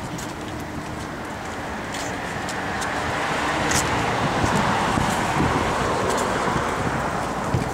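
Street traffic noise: a car passes by, its tyre and engine noise swelling to a peak about halfway through and then fading.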